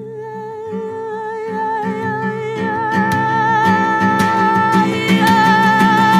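Flamenco music: a singer holds one long wavering note over plucked guitar. Sharp percussive hits join about halfway through, and the music grows louder.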